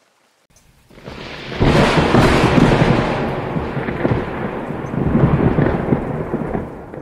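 Loud rumbling roar with dense crackling that builds about a second in and cuts off abruptly near the end: a house collapsing into a flood-swollen river.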